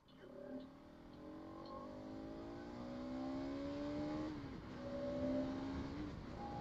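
Bajaj Pulsar NS200's single-cylinder engine pulling hard under acceleration, its pitch rising steadily, then dropping sharply about four seconds in at an upshift before pulling again.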